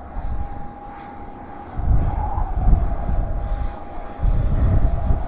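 Jet airliner engines whining in a steady high tone. Strong wind buffets the microphone in low gusts that swell about two seconds in and again near the end.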